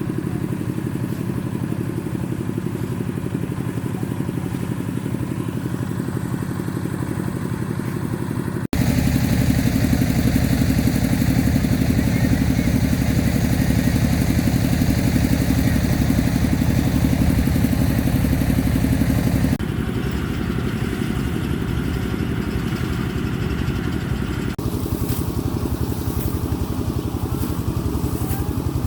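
A small engine running steadily. The sound changes abruptly about nine seconds in, gets louder and fuller, then drops back suddenly about twenty seconds in and shifts again near twenty-five seconds.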